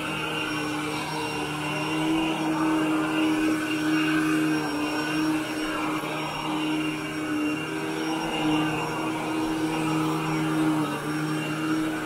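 Upright vacuum cleaner running steadily as it is pushed over wall-to-wall carpet, pulling up dry soil in a pre-vacuum pass. Its motor hum wavers slightly in pitch and loudness over a rushing airflow hiss.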